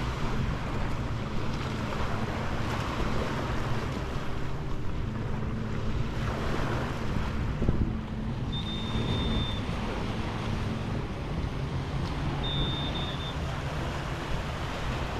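Surf washing onto a sandy beach, the noise swelling and easing every few seconds, with wind buffeting the microphone and a low hum underneath. Two brief high-pitched tones sound in the middle.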